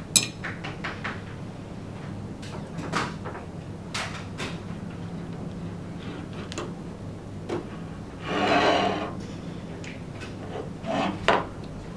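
Steel ball-bearing drawer slides being handled: a sharp metal click right at the start, scattered light clicks and taps, then about a second of metallic sliding noise a little after eight seconds in, and a couple more clicks near the end.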